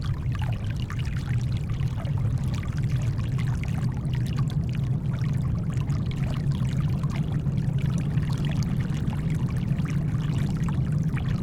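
Steady brown noise, a deep even rumble, mixed with gentle shoreline water whose small splashes and trickles crackle lightly over it.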